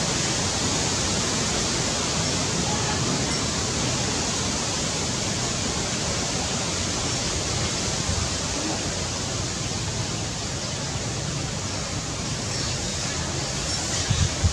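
Steady, even rushing hiss with no distinct events, and a brief low bump near the end.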